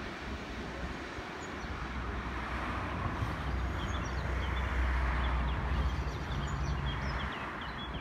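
Low rumble of rail traffic that swells to its loudest about midway and then eases off. Small birds chirp over it.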